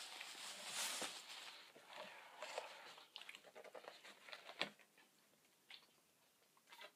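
Faint handling noises: a plastic bag rustling at first, then scattered small clicks and taps as the cap is twisted off a plastic jug of iced tea, the sharpest click a little past halfway.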